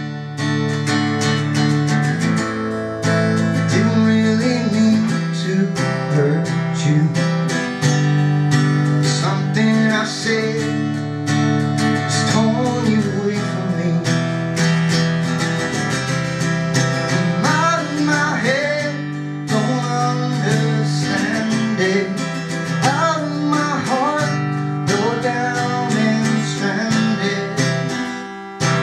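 Acoustic guitar strummed through a song's instrumental passage with no lyrics sung, with a melody line that bends and wavers in pitch over the steady chords.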